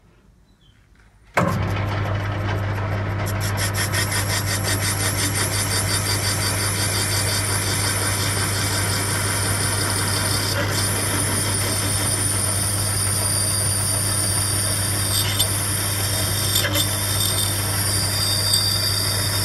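A metal lathe comes in suddenly after about a second and then runs steadily, a low hum under a high whine. A parting tool cuts a groove into a spinning 51 mm bar of 6061 aluminium, throwing off a curled chip.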